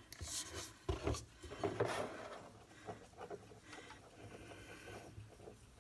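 Wooden craft stick stirring and scraping a clumping mix of baby powder and hand lotion against a small glass bowl, in irregular strokes that are stronger in the first few seconds and softer later.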